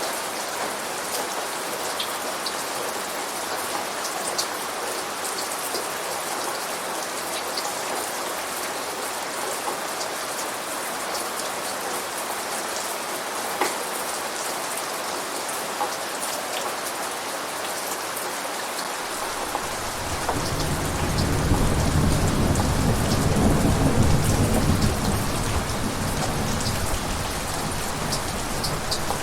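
Steady rain with a few sharp individual drops. About two-thirds of the way in, a low rolling rumble of thunder builds, peaks and slowly fades.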